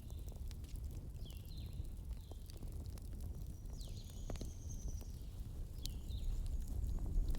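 Wood fire burning with scattered sharp crackles and pops over a steady low rumble. A bird calls several times in the background with short falling chirps.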